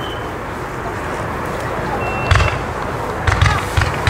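Roman candle bundle (Röder Lichterbündel 'Irrlicht', white stars) firing: sharp pops, one a little over two seconds in, then three in quick succession near the end, each launching a star.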